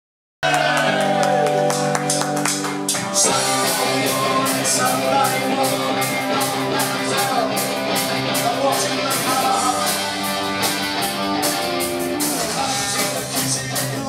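A live punk rock band playing loud, with electric guitars, bass guitar and drums, and a sung, shouted lead vocal. The sound cuts in mid-song on held chords, and the drums drive in about three seconds later.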